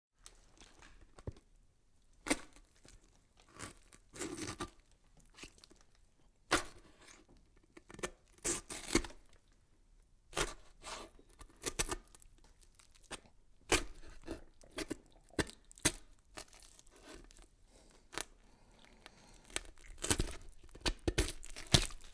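Irregular crisp tearing and crackling noises, sharp bursts at uneven intervals, about one every second or so.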